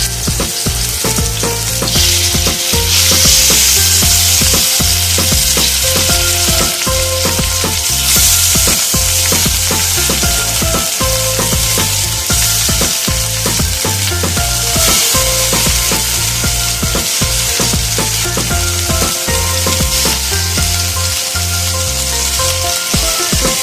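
Marinated chicken pieces sizzling steadily as they shallow-fry in hot mustard oil in a frying pan.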